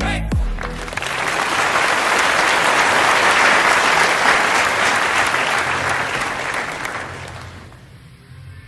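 Electronic music ends on a falling bass drop, then a burst of applause swells and fades out over several seconds.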